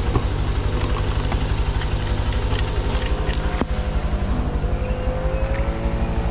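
Motorcycle engine running steadily close to the microphone, a rapid even pulsing with no change in speed.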